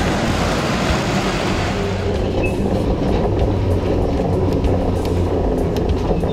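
Vintage Hurst Nelson electric tram (built 1911) running along street rails, with a steady low rumble. About two seconds in, the sound changes from a street-side mix of traffic hiss to the sound on board, where scattered sharp clicks and knocks of the wheels and body sound over the rumble.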